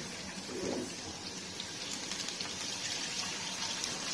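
Battered chicken pieces deep-frying in hot oil in a wok: a steady sizzling hiss with small crackles.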